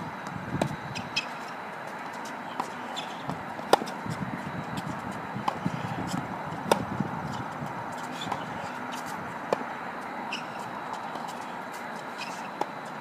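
Tennis court ambience: a steady background hiss with a thin high hum, and scattered sharp knocks of tennis balls, about eight over the stretch, the two loudest about four and seven seconds in.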